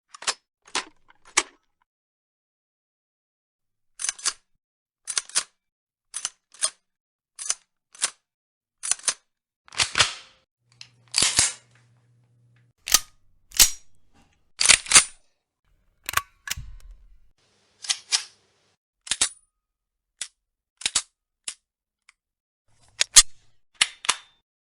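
Gun cocking and reloading sound effects: a long series of short, sharp metallic clicks and clacks, mostly in quick pairs a second or so apart with silence between. Near the start come the actions of light machine guns, after which pistol slides are racked and released.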